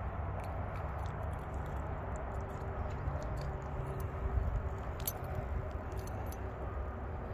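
Small metallic clicks and jingles from a Rooster Tail spinner's blade and hook being worked free of a small bass's mouth and handled, over a steady low rumble.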